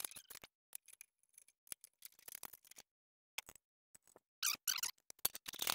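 Scattered light clicks and short metallic rattles as the mini excavator's sheet-metal side access panels are unlatched and pulled off.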